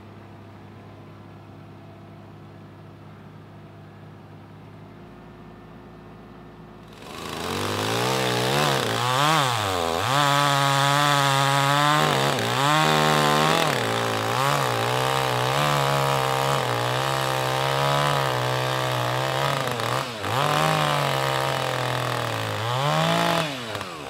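The Kubota mini digger's diesel engine idles faintly at first. About seven seconds in, a two-stroke chainsaw comes in loud, revving up and down and then running at high speed as it cuts through a felled dead chestnut log, its pitch dipping briefly twice near the end.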